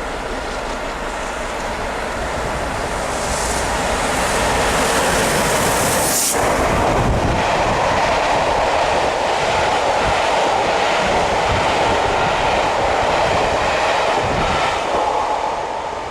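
A steam-hauled passenger train, the A1 Pacific 60163 Tornado and its coaches, passing at speed on the main line. The rumble of wheels on rail builds over the first few seconds, with a sudden sharp rush about six seconds in. It then settles into a steady rolling clatter of the coaches that falls away near the end.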